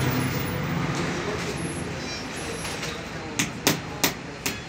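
A steady machine hum that slowly fades, then about four sharp knocks in the last second and a half as a large wooden board is shifted and butted into place on a CNC router bed.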